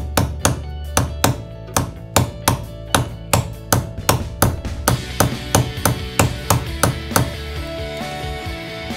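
Background music: guitar with a steady beat of about three to four strokes a second, growing fuller from about five seconds in.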